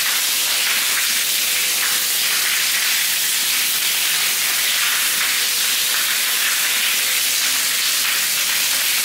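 Wall-mounted waterfall shower spout running, a single stream of water pouring down with a loud, steady rush.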